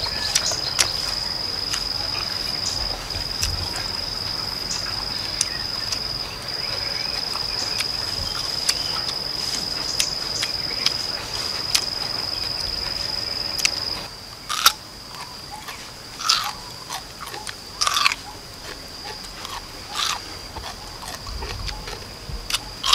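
Crisp crunching bites and chewing of raw chayote fruit, about one crunch every second or two, clearest in the second half. For the first fourteen seconds a steady high-pitched insect drone runs over it and then stops.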